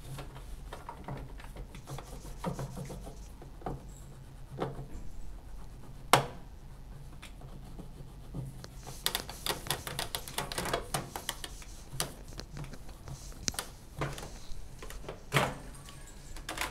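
A wet wipe rubs and scrubs over a microwave oven's plastic front panel and dial knobs, giving scattered soft rubbing strokes and small plastic clicks; a sharp click about six seconds in is the loudest. Near the end the oven door's latch clicks and the door swings open.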